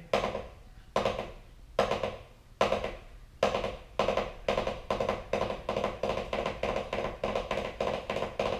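Drumsticks on a practice pad playing short rolls. At first each roll is a quick burst of strokes, about one a second; from about four seconds in they come closer together until they nearly run into each other.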